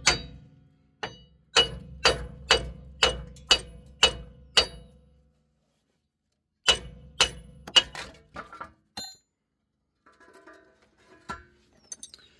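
Hammer striking a rear wheel hub to drive it out of its mount: about eight ringing metal blows at roughly two a second, a pause of about two seconds, then three more blows and a few lighter clinks near the end.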